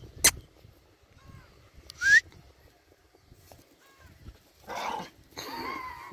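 Small white spitz-type dogs yapping as they jump up begging for a treat: a short, loud rising yelp about two seconds in and rougher barking near the end, with a sharp click near the start.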